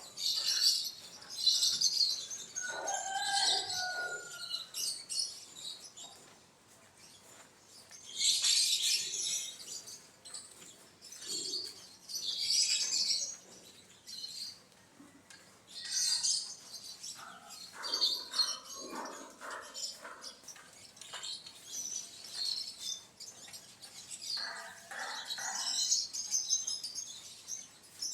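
Birds chirping: short bursts of high twittering every few seconds, with a few lower calls between them.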